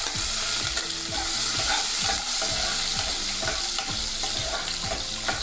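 Garlic cloves and cumin seeds sizzling steadily in hot mustard oil in an aluminium pot, stirred with a steel ladle.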